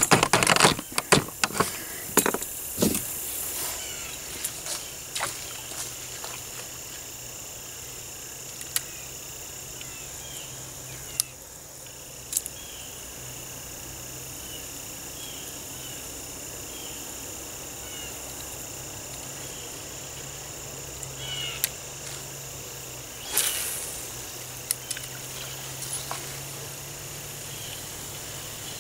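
Outdoor ambience beside a pond, with a steady low hum and a short high chirp repeating about once a second. A few sharp clicks and rattles of handling sound in the first seconds, and a brief noisy rush comes about 23 seconds in.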